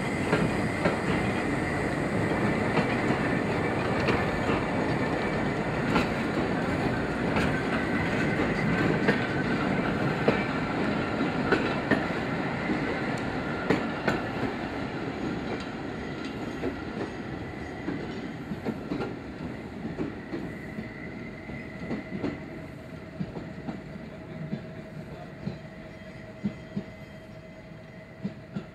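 Narrow-gauge steam train, the 1927 locomotive 'Plettenberg' with its wagons and coaches, rolling past at low speed. Wheels clack over the rail joints, with a thin high wheel squeal. The sound fades steadily as the train pulls away.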